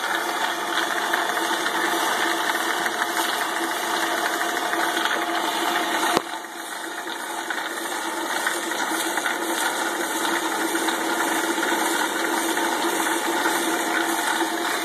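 Home-made ball mill with a star roller attachment running: steady motor hum and the rattle of the turning drums. A single sharp click about six seconds in.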